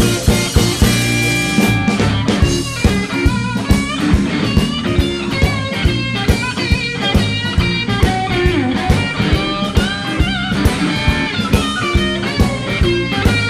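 Blues band playing an instrumental intro: electric guitar lead with bent notes over a steady drum kit beat and bass.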